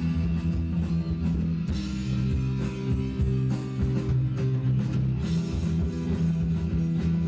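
Live rock band playing an instrumental passage: guitar over sustained bass notes and a drum kit.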